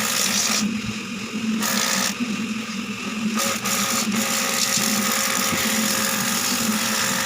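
A small electric motor hums steadily while a loud hiss cuts out and comes back several times.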